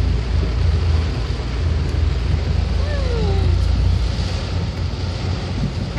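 Car cabin noise while driving on a wet highway in rain: a heavy, steady low rumble with an even hiss over it.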